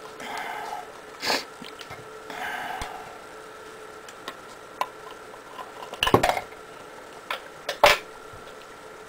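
Small hard objects clinking and knocking as they are handled. There are two short scraping noises in the first three seconds, then scattered sharp knocks, the loudest about six and eight seconds in.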